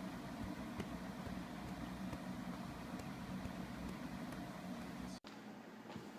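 A steady low hum with faint background noise, which cuts off abruptly about five seconds in.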